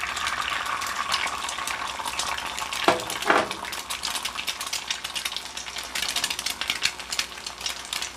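An egg frying in butter in a Hestan NanoBond stainless skillet, a steady sizzle full of small crackles and spits. About three seconds in come two brief knocks with a short ring, wooden chopsticks tapping against the steel pan.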